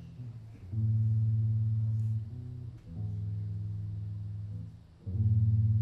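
Electric bass guitar played solo through an amplifier: three sustained low chords, each held about two seconds with short breaks between them.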